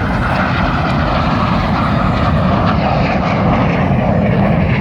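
Jet engine noise from the Red Arrows' BAE Hawk jets flying past in a steady loud roar, with a whine that slowly drops in pitch as they go by.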